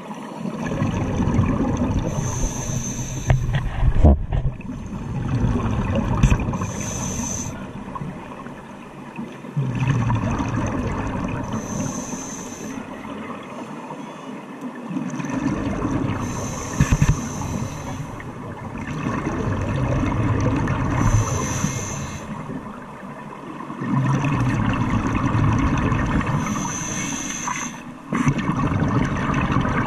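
Scuba diver breathing through a regulator, one breath about every four to five seconds: a short hiss as air is drawn in, then a long bubbling rumble of exhaled air.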